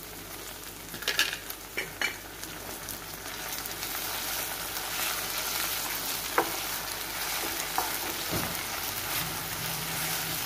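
Ginger-garlic paste and sliced onions sizzling in hot oil in a non-stick kadai, stirred and scraped with a wooden spatula. A few sharp clicks come about a second in, then the sizzle grows louder and holds steady as the paste is sautéed to cook off its raw smell.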